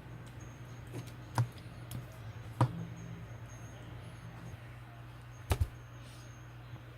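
A few short, sharp taps over a steady low hum, including a quick double tap near the end.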